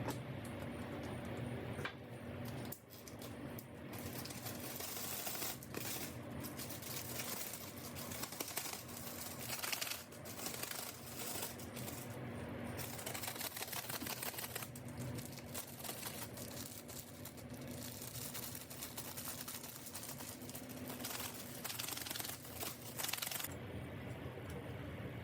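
Rapid small plastic clicks and rattles from mechanical keyboard parts being handled, the kind made by keycaps and switches being taken apart and worked on, over a steady low hum. The clicking starts about two seconds in and stops shortly before the end.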